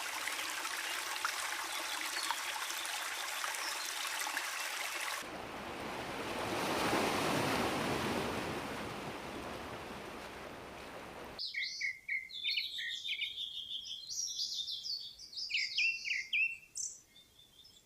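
A run of nature sounds with abrupt cuts: first a crackling wash of rain or trickling water, then about five seconds in a wash of running water that swells and fades, and from about eleven seconds small songbirds chirping and trilling over a quiet background.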